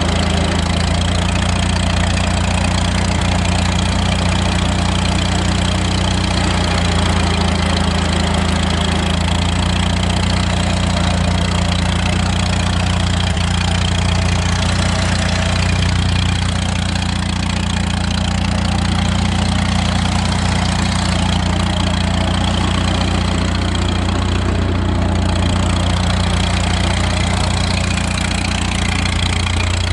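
Engine of a 1930s US Forest Service trail tractor, a small crawler dozer, running steadily, heard close up from on the machine.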